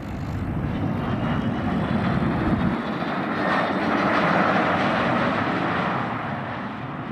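Embraer Praetor 600 business jet landing, its twin turbofans heard as a low rumble that builds into a louder jet rush with a faint whine, swelling about three to five seconds in and then fading.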